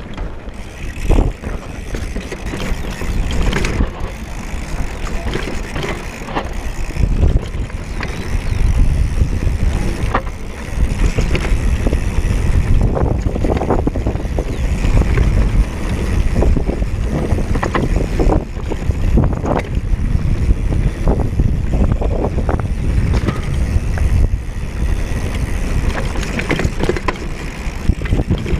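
Mountain bike riding fast down a rough dirt trail: wind buffeting the action camera's microphone in a heavy rumble, with frequent knocks and rattles from the bike over bumps.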